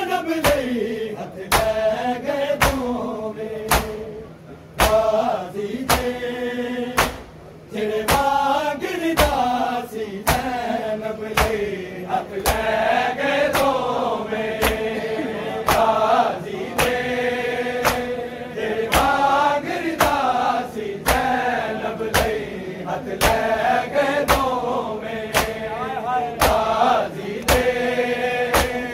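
A noha chanted by men's voices in unison, over the steady slaps of hands beating bare chests (matam), about one beat every three-quarters of a second.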